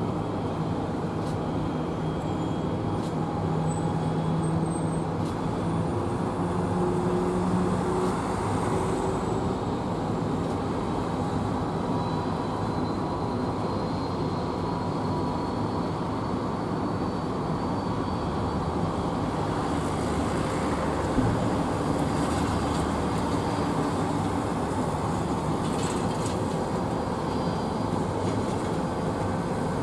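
Boeing 767's twin jet engines at taxi idle: a steady hum with a faint high whine over the airfield's background noise.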